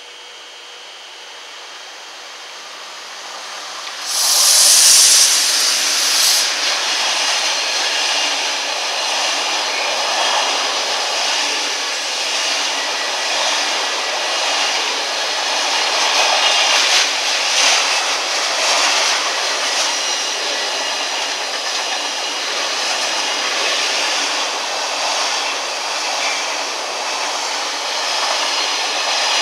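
Intermodal freight train of container flat wagons passing through at speed. A sudden loud rush of noise starts about four seconds in, then a steady rushing of wheels and wagons with occasional clatter.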